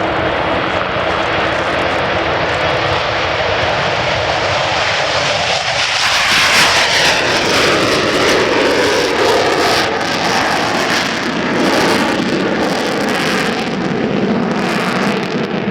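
Avro Vulcan XH558's four Bristol Olympus jet engines at take-off power: loud, steady jet engine noise that swells about six seconds in and stays strong to the end.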